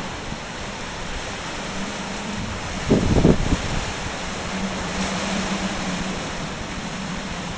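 Tropical-storm wind howling steadily and buffeting the microphone, with a brief louder burst about three seconds in.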